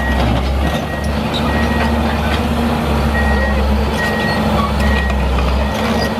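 Sandvik DX780R crawler drill rig on the move: its Caterpillar C7 diesel runs steadily under the rattle of its steel tracks, while a high travel-alarm beep sounds about once a second.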